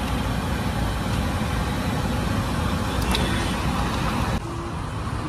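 Steady low rumble of roadside street noise, like passing traffic, which drops abruptly in level about four seconds in.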